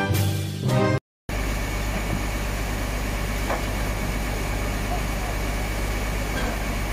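Music ends abruptly about a second in. Then comes the steady low running noise of heavy machinery engines, with no change.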